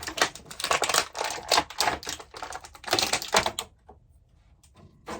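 Stiff plastic action-figure packaging tray crackling with rapid irregular clicks as the figure is pulled out of it. The crackling stops about three and a half seconds in, and a single sharp click follows near the end.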